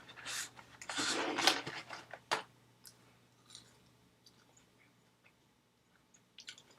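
A person eating McDonald's French fries close to the microphone. Loud noisy crackling in the first two seconds or so gives way to soft, scattered chewing clicks.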